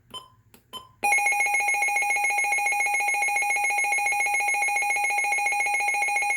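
Midland WR400 weather radio's alert siren. Short ticks come about twice a second, then about a second in a loud, shrill electronic alarm tone with a fast trill starts and holds steady.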